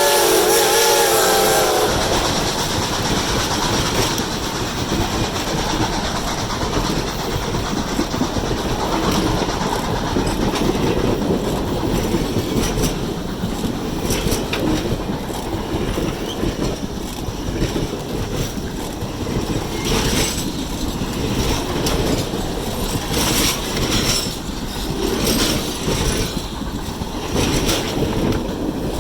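Steam-hauled passenger train rolling past, a steady rumble of wheels with rapid clicks over the rail joints, after the locomotive's whistle dies away about two seconds in.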